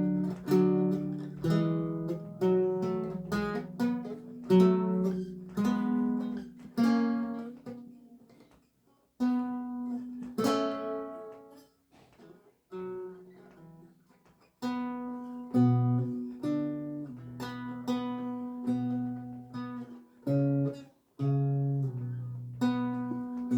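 Solo lute music: plucked single notes and chords that ring and fade, with a short pause about eight seconds in and a quieter, sparser passage around twelve to fourteen seconds.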